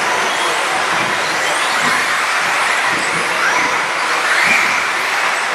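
Several 4WD radio-controlled model buggies racing: a steady high hiss and whine of their electric motors and drivetrains, with faint pitches rising and falling as the cars accelerate and brake.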